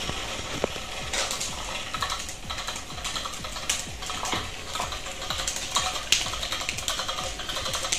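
Electric butterfly cat toy rattling and clicking irregularly as its small motor drives the feathered butterfly while a cat grabs and bites at it.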